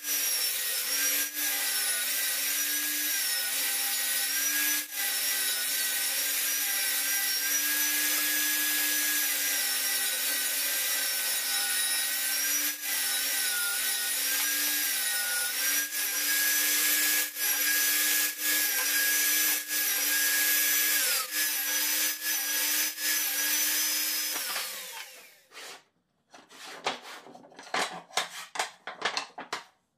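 Table saw ripping pine boards into strips: a steady motor whine whose pitch dips and wavers as the blade takes each cut. About 25 seconds in the saw is switched off and winds down, and light knocks of wooden sticks being handled follow.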